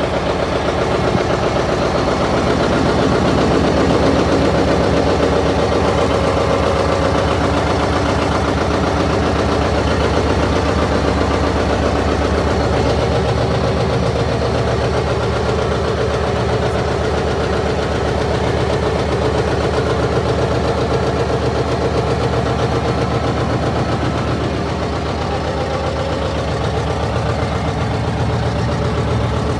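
John Deere tractor engine idling steadily, heard up close at the operator's platform.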